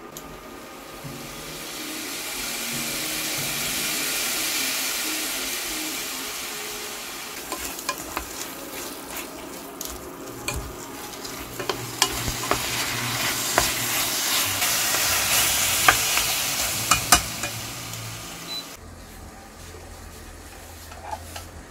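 Sausage and onion pieces sizzling in a pot on an induction cooktop, with a spatula scraping and clicking against the pot as they are stirred. The sizzle stops abruptly near the end, leaving a low hum.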